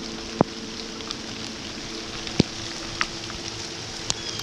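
Light to medium rain falling steadily, with scattered sharp taps of single drops landing close by. A faint steady low hum fades out near the end.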